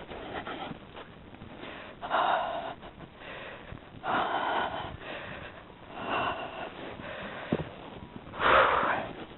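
A person breathing hard and heavily, with a strong exhale about every two seconds, from the exertion of wading through deep snow.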